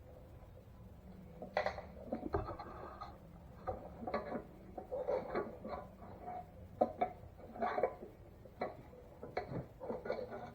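Irregular metal clinks and taps of a hand tool and bolt against the engine's gas tank mount, some with a brief ring, as the tank's bottom mount bolt is fitted.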